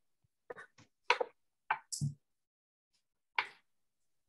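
About seven short, irregular clicks and knocks, each cut off abruptly, with silence between them.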